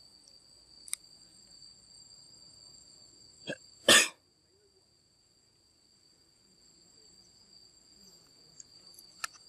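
Insects singing steadily in two even high-pitched tones, with a few faint clicks and one brief loud knock about four seconds in.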